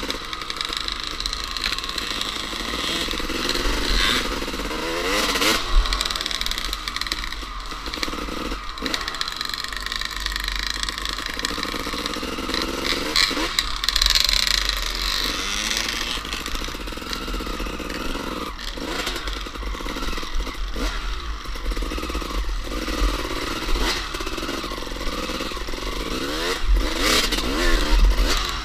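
Two-stroke dirt bike engine revving hard, its pitch climbing and dropping again and again through the gears, with wind buffeting the helmet-mounted microphone and knocks from the bumpy track.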